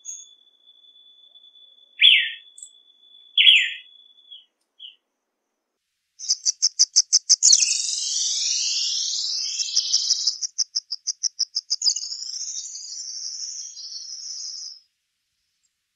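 Peruvian pipit singing a long, high song: a rapid run of even ticking notes, about six a second, that breaks into sweeping, falling buzzy phrases, then a second ticking run and a closing trill that ends near the end. Before it, two loud short falling notes from another bird sound over a faint steady high whine.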